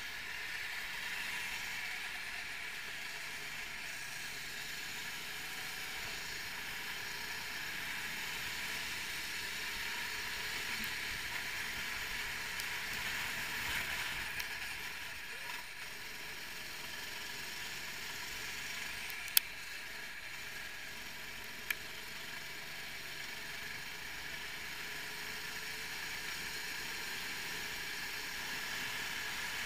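A 390 cc four-stroke rental kart running at speed, heard from on board as a steady engine-and-wind rush. Two sharp clicks come a couple of seconds apart past the middle.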